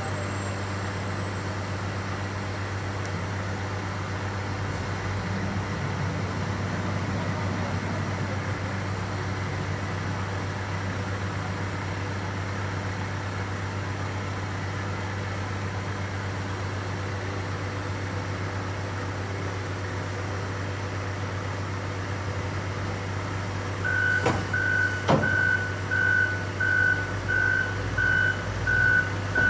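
John Deere 624K wheel loader's diesel engine running steadily while pushing against a log trailer. Near the end, a reversing alarm starts beeping about three times every two seconds, with a couple of sharp clicks as it begins.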